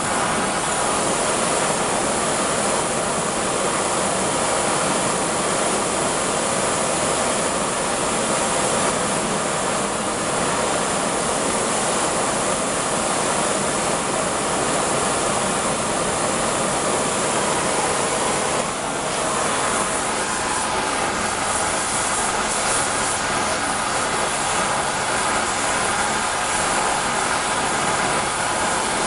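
Gas torch flame hissing steadily while brazing a knife fitting, with a brief dip about 19 seconds in.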